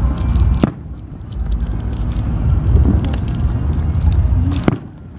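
Aerial fireworks going off: low booms and a dense crackling, with two sharp bangs, one under a second in and one near the end.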